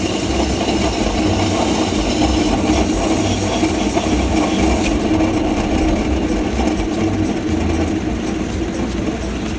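Aerosol parts cleaner sprayed around a wheel's brake and hub in a long, loud hiss that stops about five seconds in. A steady mechanical running sound with a low rumble continues underneath.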